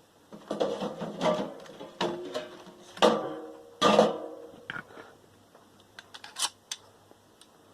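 Metal clattering and knocking as hand tools work on a scrap transformer. There are sharp knocks about a second apart near the middle, each ringing briefly, followed by lighter scattered clicks.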